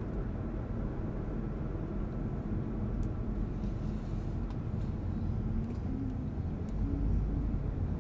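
Car driving at low speed, heard from inside the cabin: a steady low rumble of tyre and engine noise, with a couple of faint clicks.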